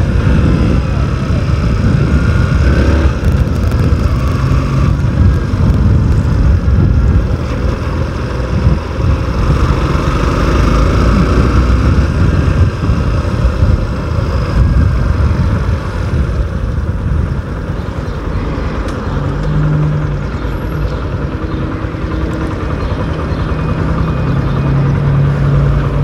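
Yamaha Crosser motorcycle's engine running with road noise while riding, picked up by a phone's microphone with little wind noise. In the last several seconds it settles to a steadier low hum as the bike slows toward a traffic light.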